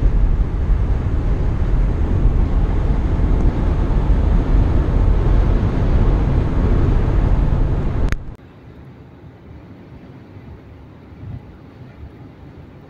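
Car cruising on a freeway, heard from inside the cabin: a loud, steady rumble of road and engine noise. About eight seconds in it cuts off abruptly with a click, and a much fainter steady hum follows.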